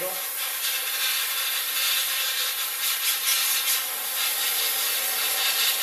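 Airbrush spraying paint onto a brass model locomotive body: a steady hiss of air and paint, with small swells as the brush is moved around. The airbrush has its biggest tip fitted and is running flat out rather than being throttled.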